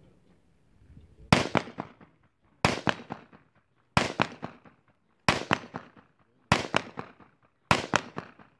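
Six gunshots about 1.3 seconds apart, each with a quick tail of echoes, fired at a row of steel plate targets in an IPSC practical shooting stage.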